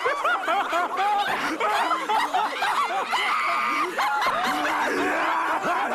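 Several cartoon voices snickering and chuckling at once in a dense, overlapping run of laughter.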